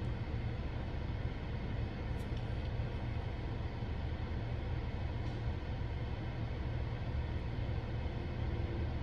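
Steady low rumble inside a car cabin.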